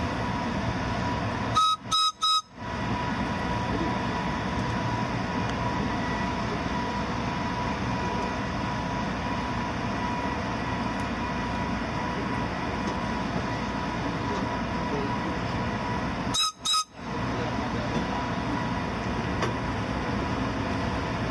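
Steady rumble of an Amtrak passenger train rolling slowly in reverse. Two quick clusters of short, sharp beeps cut in, about two seconds in and again a few seconds before the end.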